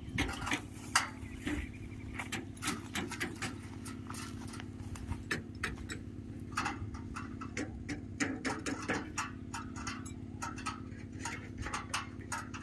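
Irregular clicks and light knocks from hands and tools working on the metal mounting frame and cable connectors under a solar panel array, over a steady low hum.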